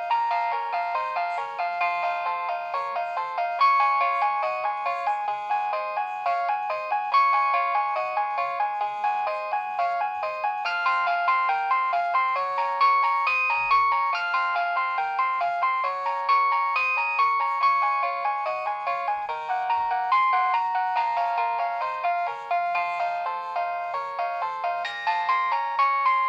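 Nokia 6100 mobile phone playing one of its built-in polyphonic ringtones through its small loudspeaker: a bright synthesized melody of short, quickly changing notes, with almost no bass.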